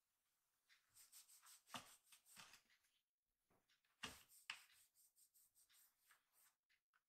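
Faint scratching and scuffling of a kitten's claws on a carpeted cat-tower tube, with a few soft thumps about two and four seconds in.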